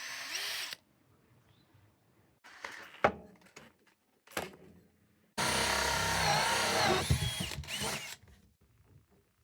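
Power drill running in short bursts, then a longer run of about three seconds from about halfway, its motor pitch shifting up and down as the speed changes; a sharp click about three seconds in.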